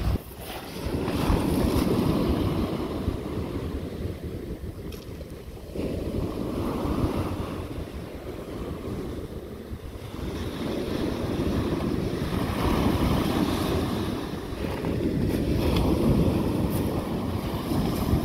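Small waves breaking and washing up a shingle beach, the rush swelling and ebbing every few seconds, with wind buffeting the microphone.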